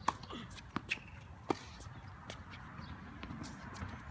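Tennis ball knocks on a hard court, a few sharp, irregular hits and bounces, the loudest about a second and a half in.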